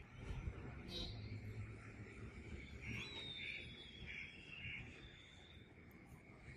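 Faint outdoor background with distant bird calls and a low murmur of distant voices.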